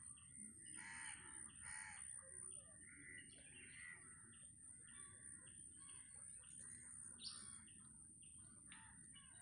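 Birds calling faintly: many short chirps throughout, with two louder calls close together about a second in.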